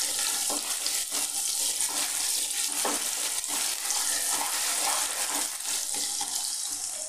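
Chopped onions sizzling in hot oil in a nonstick pan, with a steady hiss and the frequent light scrapes of a spatula stirring them.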